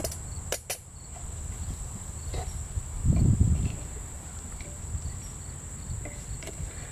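Steady high-pitched drone of insects. Over it, a wooden spoon stirs rice and mushrooms in a cast-iron Dutch oven, with a few light clinks near the start and a brief low rumble about three seconds in.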